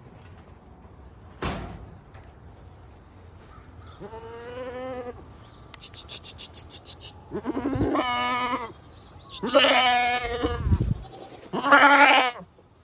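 Goats bleating: four wavering bleats, coming closer together toward the end, with a single sharp knock before the first.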